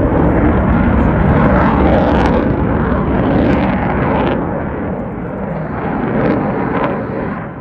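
Dassault Rafale fighter jet flying past with its twin Snecma M88 turbofans, a loud rushing jet noise. It is loudest over the first few seconds, eases, swells briefly again and drops away near the end.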